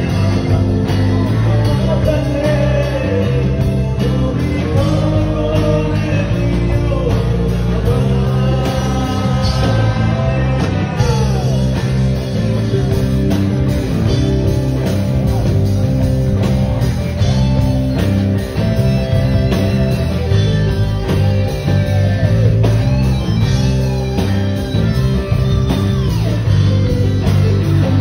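A live rock band playing loudly: electric guitar, bass guitar and drum kit, with a man singing into a microphone.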